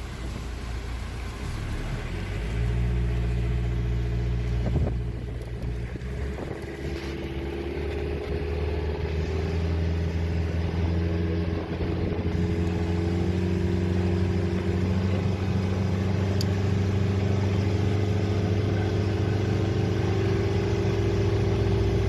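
Tour boat's engine running under way, its pitch picking up about two to three seconds in and then holding steady as the boat cruises.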